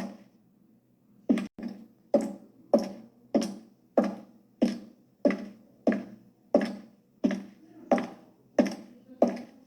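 High-heeled shoes walking: sharp heel clicks at a steady pace of about three steps every two seconds, starting after a pause of a little over a second.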